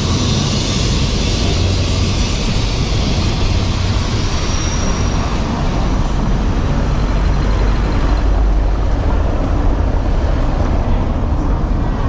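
Steady, loud rumble of a passing vehicle in city street traffic, heavy in the low end. A higher hiss fades out about eight seconds in.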